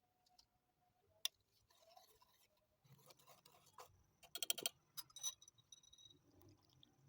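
Faint sharp clicks and clinks of small hard objects, with a quick rattling run of clicks about halfway through and a light ringing afterwards.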